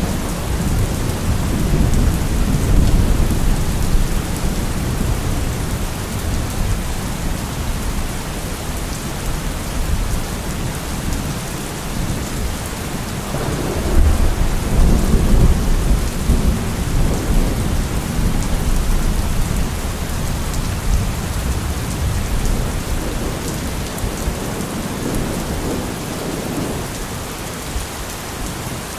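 Steady rain pouring, with low rolling thunder rumbling underneath that swells near the start and again about halfway through.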